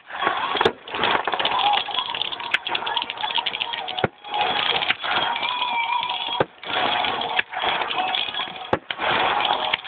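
Fireworks going off: dense crackling and repeated bangs, with crowd voices mixed in. The sound cuts out abruptly for a moment four times.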